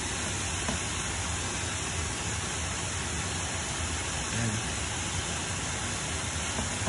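Steady sizzling hiss of mixed vegetables stir-frying in a hot skillet.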